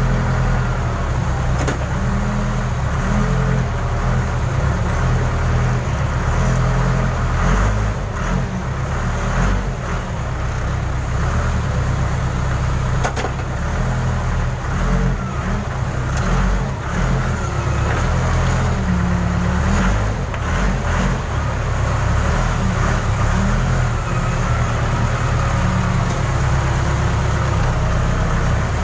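Diesel engine of a Case 580 Super K backhoe loader running hard under load while towing a stuck crane free, with a few knocks along the way.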